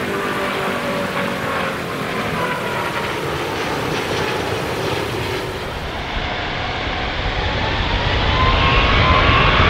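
Jet airliner engines at takeoff power: a dense roar with a whining tone that slowly falls. About six seconds in the sound changes abruptly. A whine then rises, and a deep rumble grows as it gets louder.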